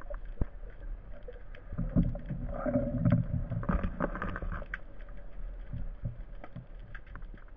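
Underwater sound picked up by a speargun-mounted camera moving through kelp: water moving around the housing, with scattered sharp clicks. About two to four seconds in there is a louder stretch of low rubbing and knocking as kelp brushes over the camera.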